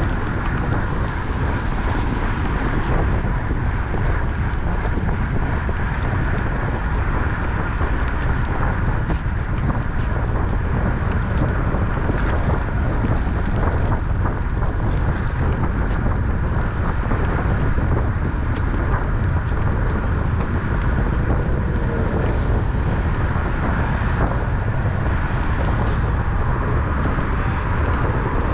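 Steady wind rush over the microphone of a road bike ridden at about 32 mph, with tyre noise on wet pavement.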